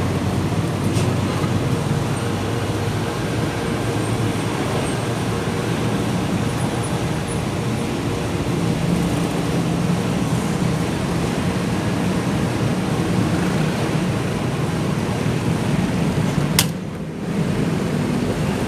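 Steady city traffic and engine noise heard from a moving motorcycle, with a low engine hum under it. A single sharp click near the end, followed by a brief dip in the noise.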